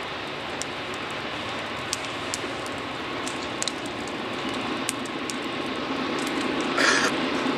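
An approaching diesel freight locomotive, its rumble slowly growing louder as it nears, with a brief loud hiss near the end.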